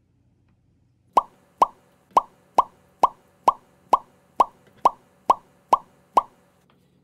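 A cartoon-style pop sound effect played twelve times in a steady run, about two a second, starting about a second in. It marks each spam and egg square popping into place in a checkerboard.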